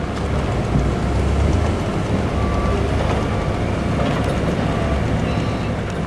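Cat forklift truck's engine running steadily while it handles packs of timber.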